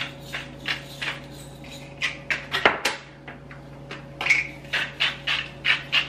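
Hand-turned pepper and salt grinders being twisted over bowls, giving a run of short grinding clicks about three a second, with one sharp knock about halfway through and a short pause before the clicking starts again.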